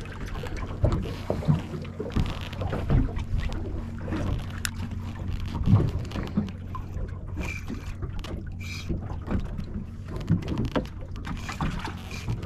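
Wind and choppy water against the hull of a small open fishing boat, with scattered light knocks and a steady low hum underneath.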